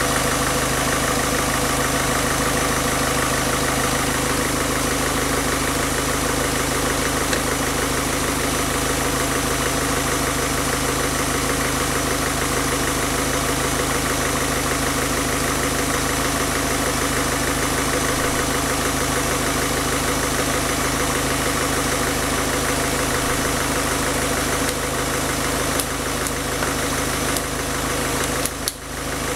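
1.6 HDi four-cylinder common-rail turbodiesel idling steadily while a cleaning liquid is fed into its air intake from an upturned bottle, to clean the injection system. The level dips briefly near the end.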